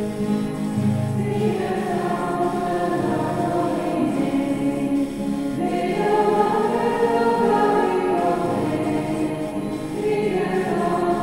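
A choir singing slow, held chords, the harmony shifting every couple of seconds.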